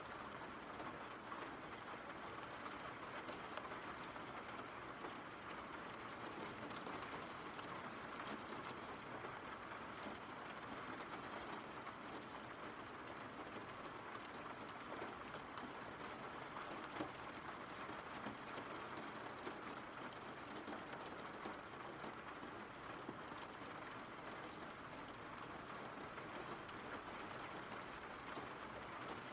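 Faint, steady rain falling, an even hiss of drops that does not let up.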